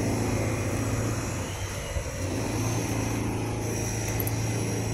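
Construction drilling machinery running with a steady, loud drone and a strong low hum.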